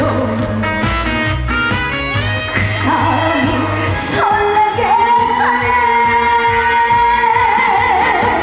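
A woman singing an upbeat Korean pop song over band accompaniment, holding one long note in the second half that wavers into vibrato near the end.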